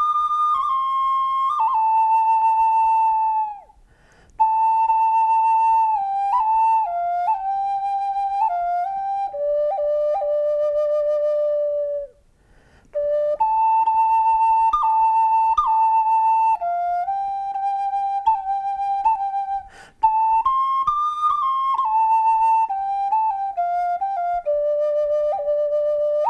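A wooden Native American-style block flute playing a slow solo melody in the minor pentatonic. Long held notes step down in falling phrases, with short breaks for breath about four and twelve seconds in.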